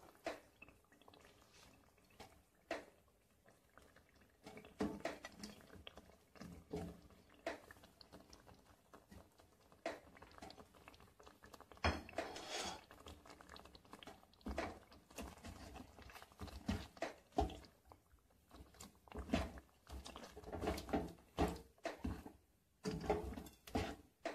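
A spatula stirring and turning chicken pieces through a wet mix of tomatoes, yogurt and spices in a nonstick pot: soft squelching of the food with scattered taps and scrapes against the pot, in irregular bursts that come thicker in the second half.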